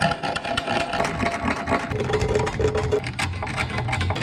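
Steel scribe scratching against the steel rear wheel arch in quick short strokes, marking through a roll-bar mounting plate's bolt hole. A machine hums steadily in the background, stronger in the second half.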